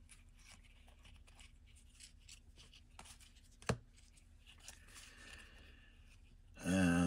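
Trading cards being handled and flipped through: soft rustling and light clicks, with one sharper click about halfway. Near the end comes a short, louder vocal sound from the person handling them.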